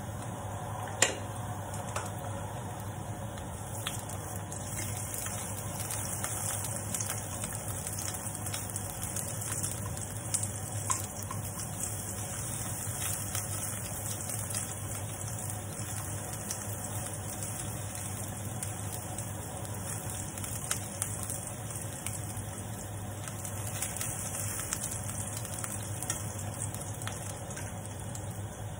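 Chopped garlic sizzling steadily in hot oil in a stainless steel pan, over a steady low hum. A few sharp clicks sound now and then, the loudest about a second in.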